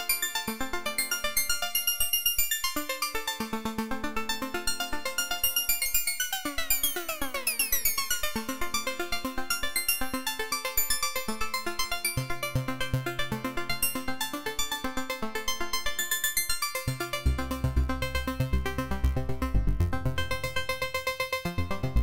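Korg microKORG software synthesizer playing its 'ElektricArpe' preset: a fast arpeggio of short repeated synth notes. A falling pitch sweep comes about a third of the way in, and a low bass part enters past halfway, dropping deeper a little later.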